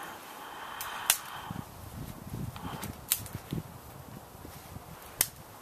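Dry dead twigs and small limbs snapped off trees by hand: three loud, sharp cracks about two seconds apart, with softer crunching footsteps in snow between them.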